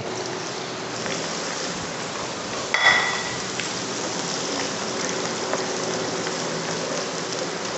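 Sliced onions sizzling steadily as they fry in hot ghee, with fenugreek and mustard seeds in it, in an aluminium pot. A short ringing clink comes about three seconds in.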